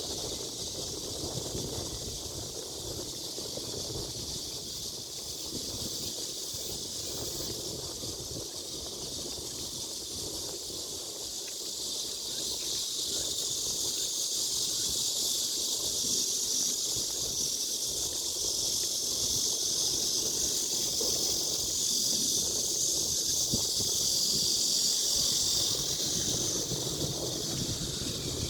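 Outdoor nature ambience: a steady high-pitched hiss that swells louder about halfway through, over a low, uneven wind rumble on the microphone.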